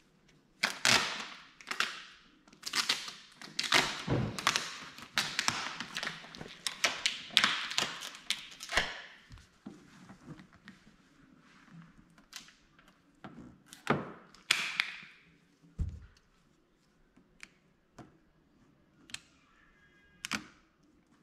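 Squeegee strokes scraping over vinyl tint film on a car tail light lens, with the film crinkling, a rapid run of rough strokes for about nine seconds, then scattered taps and short scrapes and a dull thud.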